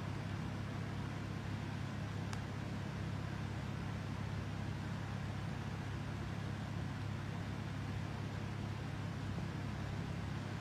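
Steady low hum with an even hiss behind it, no speech, and one faint click about two seconds in.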